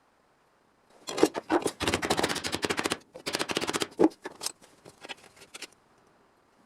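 A power tool working sheet metal with rapid, evenly repeated sharp strokes, in two main bursts with a few separate knocks before and after, starting about a second in and stopping near the end.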